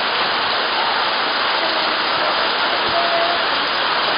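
Heavy rain pouring down onto a paved street: a dense, steady hiss of falling and splashing water.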